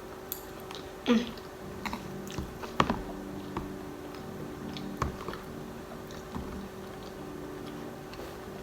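Close-miked chewing of stuffed clams, with a few sharp clicks about one, three and five seconds in, over a faint steady hum.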